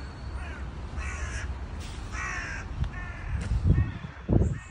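A bird calling repeatedly: short calls, then two longer calls about a second apart, then a few shorter ones. Low thuds near the end.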